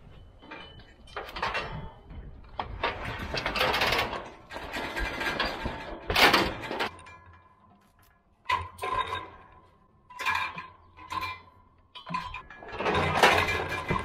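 Irregular metal clanks, knocks and rattles from a steel cattle squeeze chute and head gate as calves are held and moved through it.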